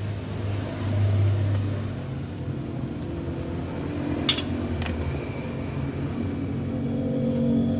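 A steady low rumble, such as a wok burner or passing traffic, with two sharp metal clinks about half a second apart a little over four seconds in, typical of a spatula striking a wok.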